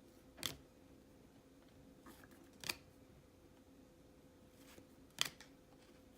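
Baseball trading cards being handled one by one as a pack is looked through: three brief, sharp card flicks about two and a half seconds apart.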